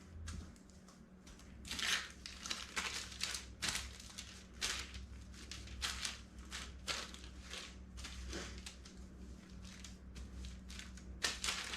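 Parchment paper crinkling and rustling in irregular crackles as hands knead sticky cookie dough on it.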